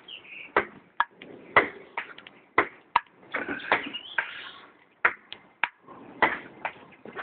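Ping-pong ball bouncing and clicking as an animal bats it about: irregular sharp clicks, sometimes two or three in quick succession.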